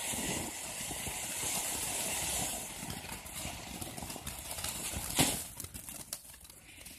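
Ground fountain firework hissing as it sprays sparks, the hiss fading over the first few seconds. About five seconds in a single sharp bang, then scattered faint crackles as the fountain burns down between stages.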